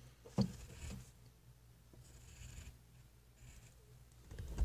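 Pencil scratching lightly on paper in a few short, faint strokes, with one soft knock about half a second in.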